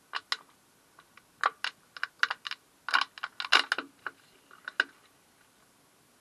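Thin plastic water bottle crackling in a series of sharp, irregular clicks as a pocket knife is worked through its wall to start the cut.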